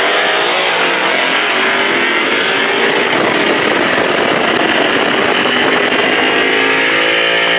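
V8 car engine pulling hard at wide-open throttle in a roll race, its pitch holding and then climbing steadily through the later seconds.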